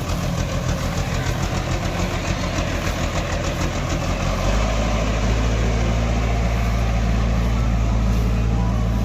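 Diesel engine of a JCB 3DX backhoe loader idling with a fast, even pulsing, then picking up speed about four and a half seconds in and running on louder and steadier.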